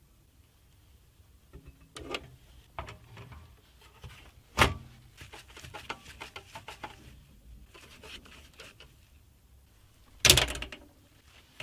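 Computer parts being handled and fitted by hand while a power supply goes into a PC case: scattered light clicks, rattles and rustling, with two louder knocks about four and a half and ten seconds in.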